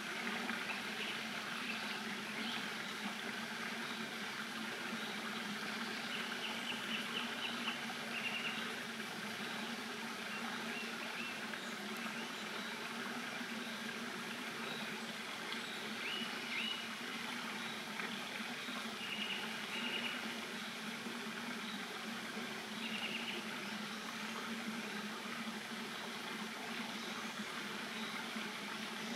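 Short runs of high, quickly repeated bird chirps, several times, over a steady outdoor hiss with a low hum.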